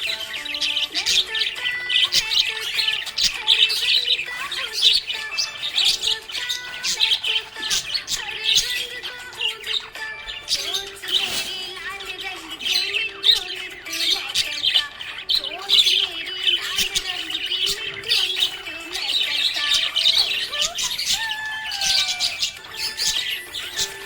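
Small pet parrots, budgies, chirping and chattering nonstop in dense overlapping calls, with occasional squawks.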